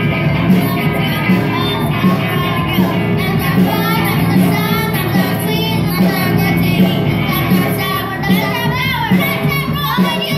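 Live children's rock band playing a song: a young girl sings lead into a microphone over guitar and drums with a steady beat.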